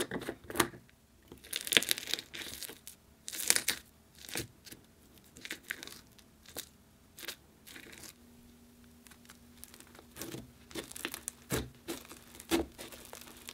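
A plastic slime jar being twisted open, then thick, crumbly teal slime being pulled out of the jar and squished and stretched by hand, giving a run of short crackly tearing and crinkling sounds.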